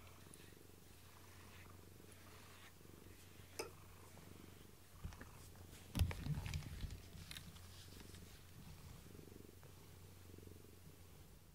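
A domestic tabby cat purring steadily, a low continuous rumble, while it is being stroked. About six seconds in there is one brief knock, louder than the purr.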